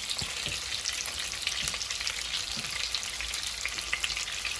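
Marinated boneless chicken pieces deep-frying in hot oil, sizzling and crackling steadily.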